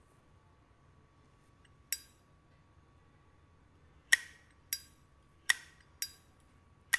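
1981 brushed-chrome Zippo lighter's lid being flicked open and snapped shut: sharp metallic clinks with a short ring. There is one about two seconds in, then five in quick succession over the last three seconds.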